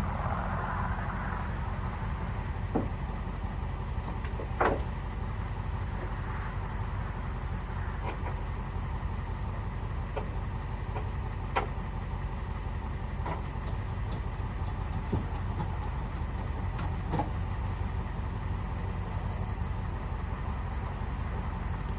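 Truck engine idling steadily, with a few scattered sharp clicks and knocks from the load being strapped down.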